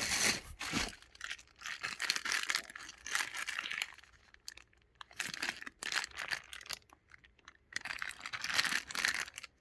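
Packaging crinkling and tearing as items are pulled out of a box and unwrapped, in irregular bursts with short quiet gaps, the loudest near the end.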